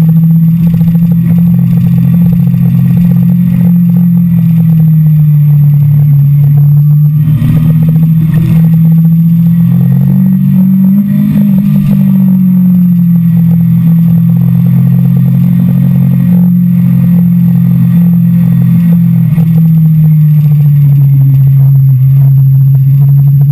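Sport motorcycle engine at speed in second gear, heard onboard at fairly steady revs over wind noise; the note rises about ten seconds in and eases back down near the end.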